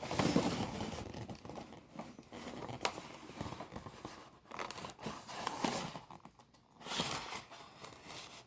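Packaging being handled during an unboxing: irregular crinkling, rustling and tearing, coming and going in several louder stretches.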